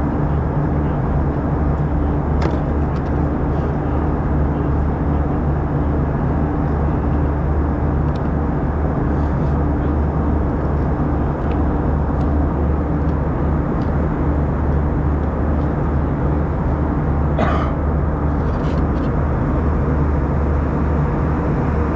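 Steady in-flight cabin drone of an Airbus A320-214: engine and airflow noise over a low steady hum, with a few faint clicks.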